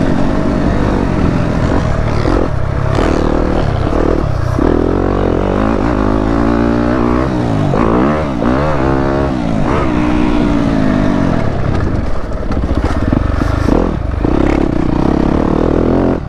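2015 Yamaha YZ250F's 250 cc four-stroke single-cylinder engine being ridden hard on a motocross track. The engine holds steady revs and then revs up and down sharply several times in quick succession around the middle.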